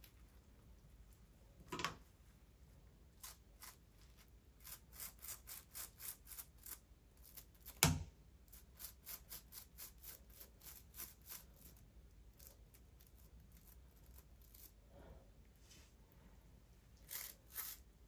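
Faint, quick scraping strokes by hand, about three a second for several seconds, with a single knock about eight seconds in, as something stuck on is worked loose.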